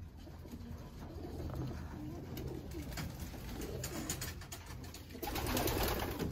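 Homing pigeons cooing, a low warbling that repeats through the loft. A brief rustling noise comes in about five seconds in.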